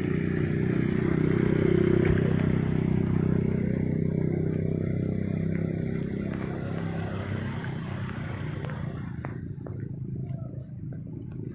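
An engine running steadily, loudest about two seconds in and then slowly fading.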